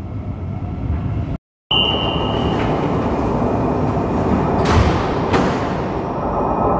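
CAF AS-2014 metro train: rumbling along the track as it runs into the station, then, after a brief break in the sound, standing at the platform with a steady noise from its running equipment. A short high beep comes about two seconds in, and two sharp clicks near the middle.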